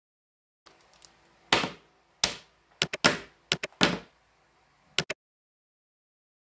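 A series of about ten sharp clicks and taps at irregular spacing, starting about a second and a half in and ending around five seconds in, with a quick double click near the end.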